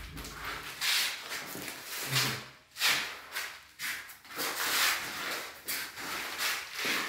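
Soft shuffling and rubbing swishes, coming irregularly about every half second to a second, from someone walking and handling the phone in an empty room.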